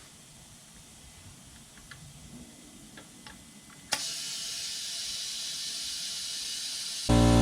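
Compressed air hissing steadily into a motorcycle tire from about four seconds in, after a few faint ticks and creaks, as the tire is inflated to seat its bead. A loud steady hum starts just before the end.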